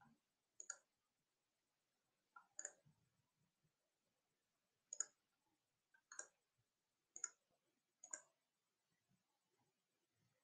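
Near silence broken by six faint, sharp clicks at uneven intervals.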